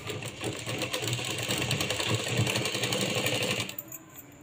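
Sewing machine running steadily, stitching a seam a second time over to lock it. It stops about three and a half seconds in.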